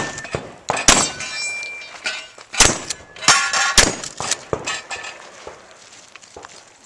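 Shotgun shots at a match, about four in under four seconds, with steel targets ringing after they are hit, followed by a few lighter clanks.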